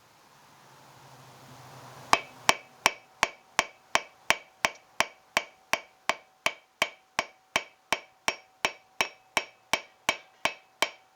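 Hand hammer cold-forging a silver bar, evenly timed blows about three a second, each leaving a short metallic ring. The hammering starts about two seconds in, after a rising hiss.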